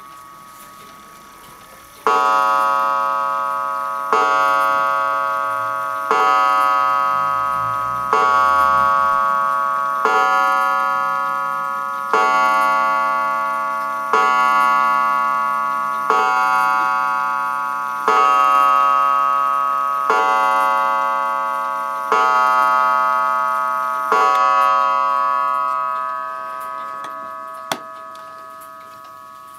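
Smiths Enfield 8-day mantel clock striking the hour on its gong: twelve strikes about two seconds apart, for twelve o'clock. Each strike rings on and fades, and the last dies away over a few seconds.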